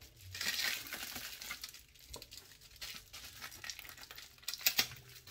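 A parcel being cut open with a knife and unwrapped: irregular crinkling and rustling of paper and packaging, busiest in the first second, with a few sharp clicks near the end.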